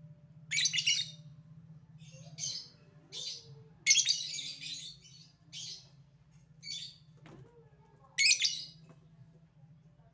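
Lovebird giving bursts of shrill, high-pitched chattering calls, about seven separate bursts with short gaps, the longest and loudest about four seconds in.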